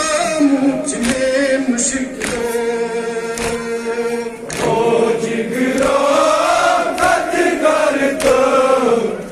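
Many men chanting a Kashmiri nowha, a Muharram mourning lament, together. They hold one long note for a couple of seconds, then sing a phrase that rises and falls. Sharp slaps of chest-beating (matam) break in now and then.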